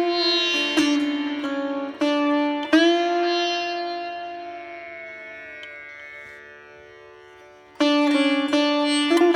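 Background music on a plucked string instrument in Indian classical style, with sliding, bending notes over a steady drone. One long note fades slowly through the middle, and fresh plucked notes come in near the end.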